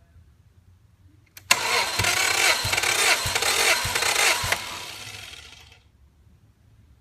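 Subaru EJ20 turbo engine being cranked over by its starter motor for about three seconds, with a few heavy thumps as it turns. The sound cuts off suddenly and then dies away over about a second without the engine running.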